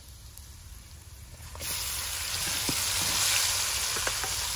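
Marinated chicken frying in hot coconut oil and spice masala in a pan: after a quiet start, a loud, steady sizzle begins about one and a half seconds in, with a few light clicks.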